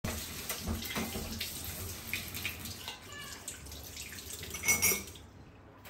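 Kitchen tap running into a stainless steel sink while hands are rinsed under the stream, with splashing. The flow stops about five seconds in.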